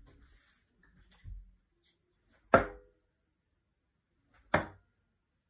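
Two steel-tip darts striking a sisal bristle dartboard about two seconds apart, each a sharp thunk with a brief ring.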